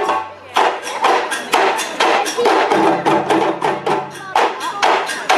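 Djembe drum ensemble playing a fast rhythm of sharp hand strokes together, with low bass notes underneath; the drumming drops back briefly about half a second in.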